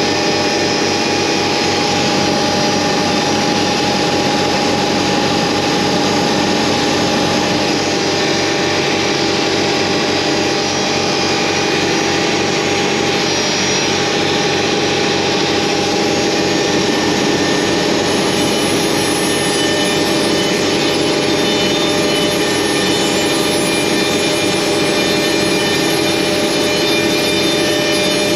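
ShopBot CNC router running steadily, its spindle whining as the bit cuts into an OSB sheet, with the dust collection running through the spindle's hose.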